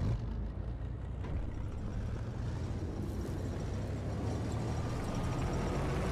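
Sound effects of an action-style intro: a deep, steady rumble that starts suddenly with a hit and holds, with a hiss of higher mechanical noise building over the last few seconds.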